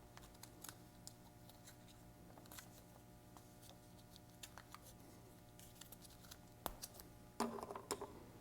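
Faint scattered clicks and crinkles of Teflon thread tape being wrapped around a pipe fitting's threads, with a brief burst of louder handling noise near the end.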